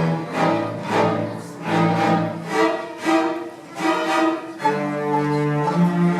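High school string orchestra playing: strong, repeated bowed chords about twice a second, with cellos and basses prominent, then settling into held chords near the end.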